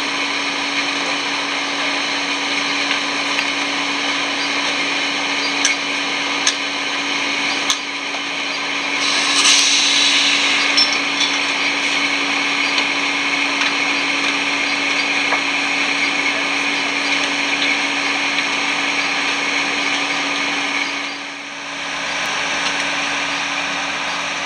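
Steady loud whine and rush of a parked Boeing 737-400's auxiliary power unit running on the apron, with a constant hum underneath. A brighter hissing rush swells about nine seconds in for a couple of seconds, and the noise dips briefly near the end.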